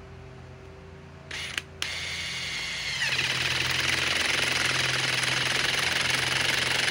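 DeWalt DCF870 hydraulic impact driver on speed 1 driving a long screw into a log. After a short spin of the motor about a second in, it whines unloaded, then about three seconds in the whine drops in pitch as the impact mechanism engages and it hammers fast and steadily to the end.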